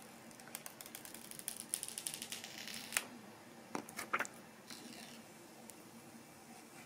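Thin clear plastic protective film being peeled off a new phone, faint crackling and crinkling, with a few sharper clicks around three to four seconds in.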